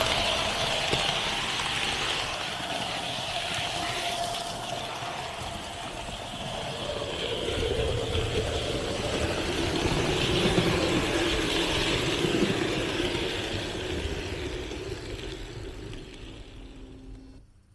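Märklin H0 model train running along the layout's metal track, the locomotive's motor and wheels making a steady rolling, whirring noise. It fades over the last few seconds, then cuts off abruptly.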